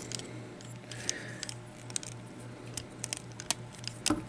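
Small, sharp clicks and light rattling from the parts of a transforming robot toy figure being worked by hand, as its leg and foot pegs are pushed and wiggled into their holes. A low, steady hum runs underneath.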